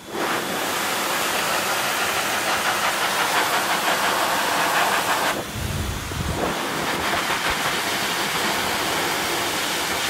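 Blow dryer blowing a steady rush of air over a wet parrot's feathers. About five seconds in the hiss turns duller, with a short low rumble, then the steady rush goes on.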